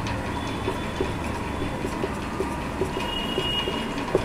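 Marker pen writing on a whiteboard: small taps of the tip against the board and two brief high squeaks of the felt tip, over a steady background hiss and hum.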